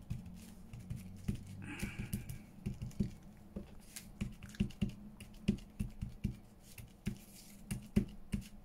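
Ink blending tool dabbed repeatedly onto paper to ink its edges: a string of soft, irregular taps, several a second.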